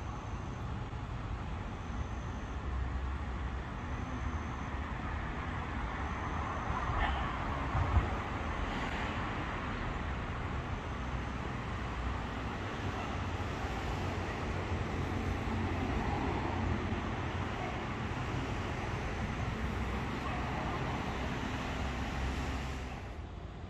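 Steady rolling and traffic noise as a B2-class electric tram runs away along the track, with one sharp knock about eight seconds in. The noise drops off near the end.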